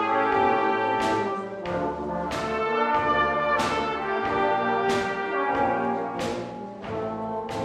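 Solo cornet playing a slow, legato ballad melody in held notes, with a low bass line in the accompaniment underneath.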